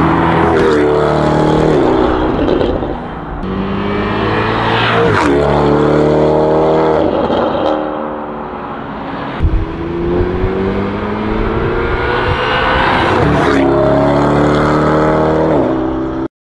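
Lamborghini Urus twin-turbo V8 accelerating hard past, its note climbing and dropping back at each upshift, going by several times. A couple of sharp exhaust pops come about nine and a half seconds in.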